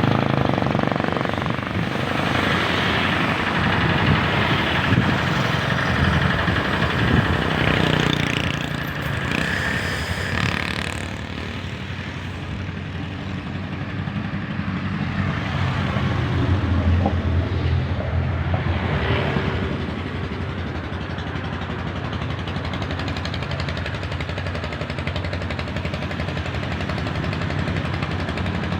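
Large diesel bus engines running close by, a continuous deep rattling rumble. It is loudest in the first ten seconds, eases off briefly, then settles to a steady level.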